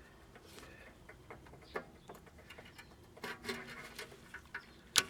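Faint scattered clicks and small handling noises, with one sharp click near the end.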